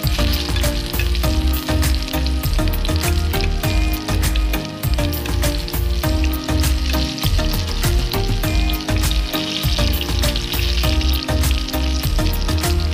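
Eggplant pieces frying in shallow oil in a pan, sizzling and crackling. Background music with a steady beat and bass plays over it.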